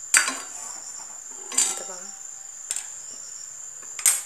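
Steel kitchen utensils clinking: four sharp metallic clicks spread over a few seconds, the first the loudest. A steady high-pitched whine runs underneath.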